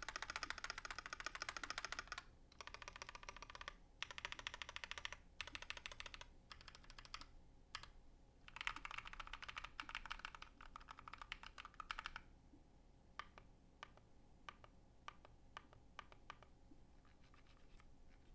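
Typing on a GMMK Pro mechanical keyboard with lubed Glorious Panda tactile switches, an aluminium plate and PBT keycaps: fast runs of keystrokes with short pauses between them, then, about two-thirds of the way through, single keys pressed slowly one at a time.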